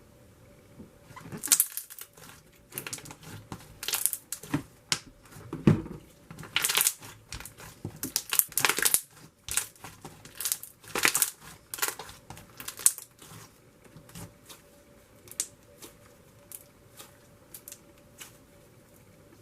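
Thick slime with marshmallow foam beads being squeezed and stretched by hand: irregular crunching, crackling and popping. The sounds are densest in the first half and thin out toward the end.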